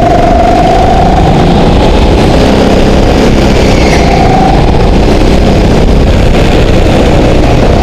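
Go-kart engine running hard, heard loud and close from on board the kart. A high whine sits over it, fading out about two seconds in and coming back briefly around four seconds.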